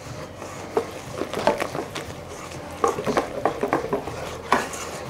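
Wire balloon whisk beating a thick batter of egg yolks, milk and flour in a stainless steel bowl: irregular clinks and scrapes of the wires against the metal, with a sharper knock about four and a half seconds in.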